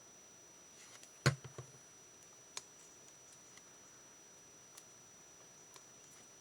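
Scattered light clicks and taps of paper-crafting tools and cardstock being handled, with one sharper click about a second in and a few fainter ones after.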